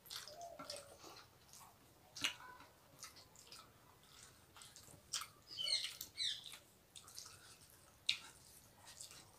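Faint eating sounds from people eating rice by hand: chewing, mouth and lip clicks, and fingers working rice on a plastic plate, with a couple of sharper clicks. About five to six seconds in, a short run of high chirps.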